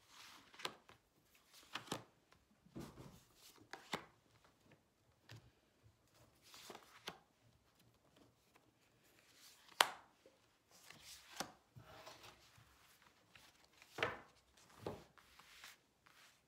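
Tarot cards slid out of a spread deck and laid down on a table: faint, irregular taps and scrapes of card on the tabletop, with a sharper tap about ten seconds in.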